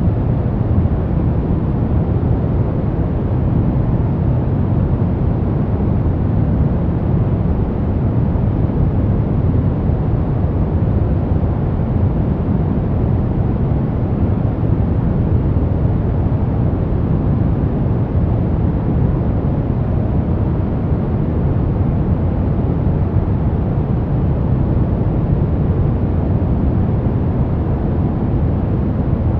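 Steady, unchanging noise track played as white noise for sleep and focus, heavier in the low end so that it sounds like a deep, even hiss.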